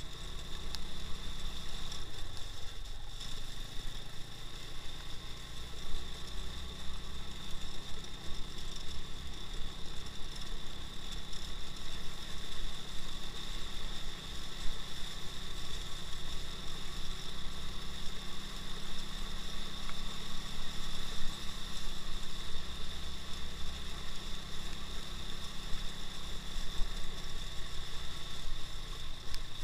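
A 2x2 all-wheel-drive motorcycle's engine running steadily, with a brief dip about two seconds in, alongside a steady high whine.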